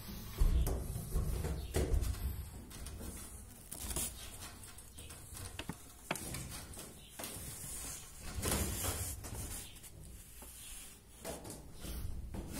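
Irregular knocks, scrapes and low rumbling from a handheld phone being moved around as its holder walks, with scattered sharp clicks.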